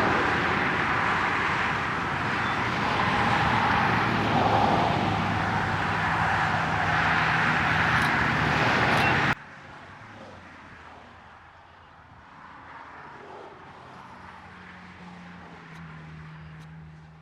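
Diesel freight train led by an EMD SD40 locomotive rolling past close by: a steady rumble of engine and wheels on the rails. It cuts off abruptly about nine seconds in to quiet outdoor background with a faint low hum.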